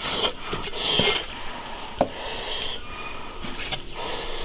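A cleaver slicing braised beef on a thick wooden chopping block: a handful of sharp, irregularly spaced knocks of the blade on the wood, with short scraping sounds between them.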